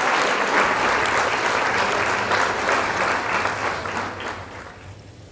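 Concert audience applauding after a recorded soprano aria, the clapping fading out over the last second or so.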